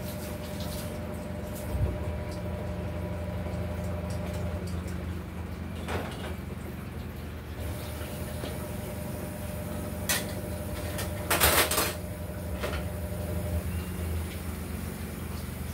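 Washing up at a kitchen sink: crockery and cups knocking and clinking as they are handled, loudest in a short clatter a little past the middle. Tap water runs from about halfway in, over a steady low hum.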